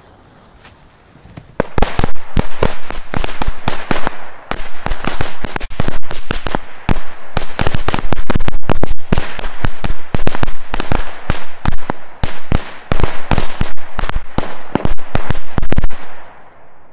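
Firecracker 'machine-gun belt' strip going off: the lit fuse hisses for about a second and a half, then the crackers bang in a rapid, irregular string for about fourteen seconds, stopping suddenly near the end.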